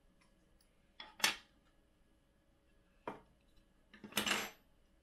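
3D-printed plastic printer parts clattering as they are handled and set down, in three short bursts about one, three and four seconds in.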